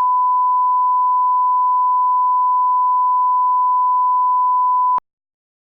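A single steady electronic test tone, one pure pitch held evenly for about five seconds and then cut off abruptly.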